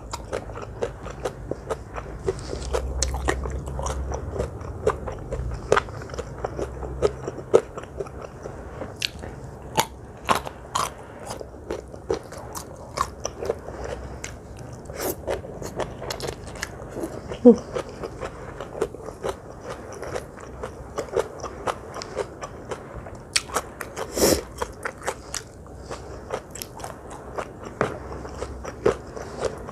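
A person eating crunchy food close to the microphone: crisp bites and chewing with many sharp, irregular crackles, one crunch about three-quarters of the way through louder than the rest.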